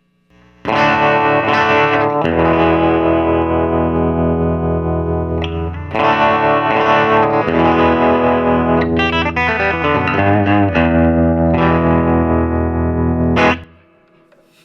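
Electric guitar played through a tremolo effect and a Victoria Chicago-lux amp, strumming held chords with a slightly pulsing volume. Around the middle there is a run of falling notes. It ends with a sharp last strum, then dies away.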